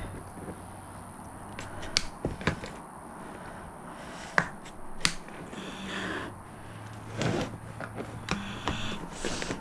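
Scissors cutting through a thin plastic plant pot: about four sharp snaps as the blades cut and the plastic cracks, then rustling and scraping of plastic and soil in the second half.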